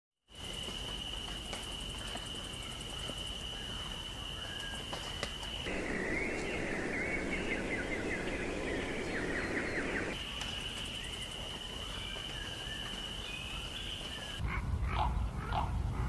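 Wild nature ambience: a steady high-pitched trill, broken for about four seconds in the middle by rapid bird chirping over a rushing hiss. Near the end it cuts to a few short bird calls over a low rumble.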